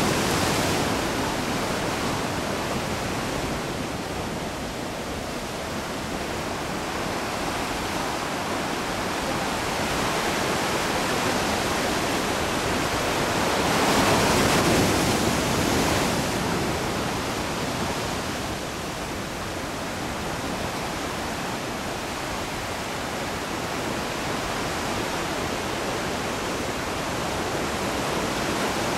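Ocean surf breaking on a rocky lava shoreline: a steady rush of waves that swells louder about fourteen seconds in and eases off again.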